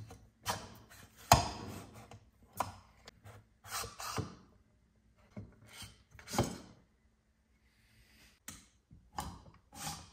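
Engine cylinders being set onto the crankcase of a Rotax 787 two-stroke: an irregular run of metal clunks, knocks and short scrapes, the loudest knocks at about one second and six seconds in.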